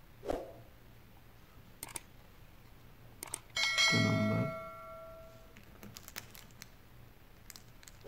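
Handling noise from a fingerprint reader and its metal back plate: scattered light clicks and knocks, and one louder metallic clank about three and a half seconds in that rings on and fades over a second or two.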